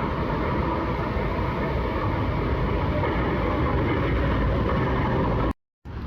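Steady rumble of a moving vehicle, which stops abruptly about five and a half seconds in.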